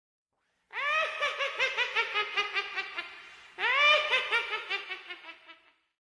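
A high-pitched witch's cackle, heard twice: each a run of rapid laughs, about five a second, that starts loud and trails off.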